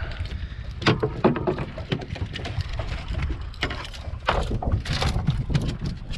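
Wind rumbling on the microphone on a boat, with irregular knocks and clatters throughout.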